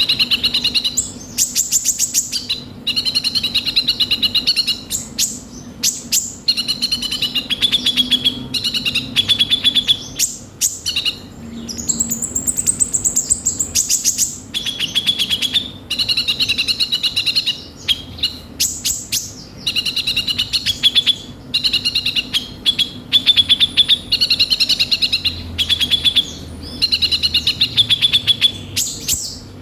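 A sunbird of the kind sold in Indonesia as 'kolibri ninja' sings continuously in rapid, high, scratchy twittering phrases with short pauses between them. About twelve seconds in there is a higher buzzing trill. A faint steady hum runs underneath.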